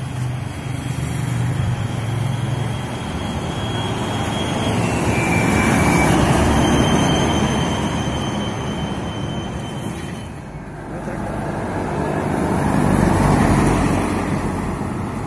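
Heavy diesel trucks driving past one after another, engine and tyre noise swelling and fading twice, loudest about six seconds in and again near the end. A thin, steady high whine sounds for a few seconds in the middle.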